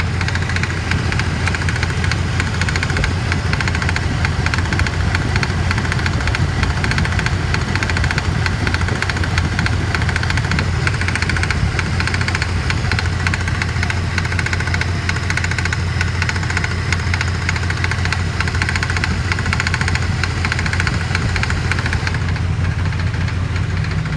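Lincoln Navigator engine idling with a fast, steady knocking from the water pump pulley, which has come loose on the pump.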